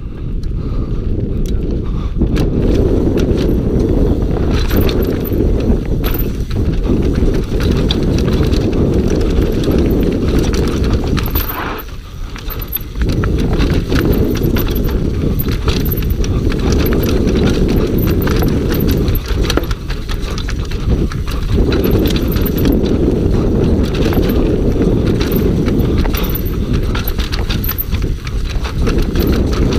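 Downhill mountain bike (Scott Gambler) rattling and clattering at speed over roots and rocks, a dense run of knocks from the tyres, suspension and frame, over a steady low rumble. It dips briefly about twelve seconds in.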